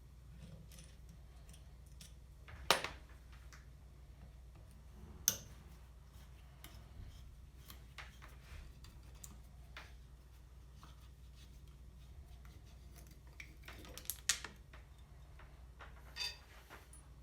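Metal starter-motor parts and hand tools being handled on a workbench: scattered clicks and clinks, the sharpest about three and five seconds in and a cluster near the end, over a steady low hum.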